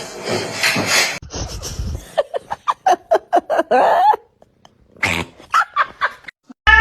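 Dog giving a quick run of short yelps, about five a second, with a few more near the end. A cat's meow starts right at the end.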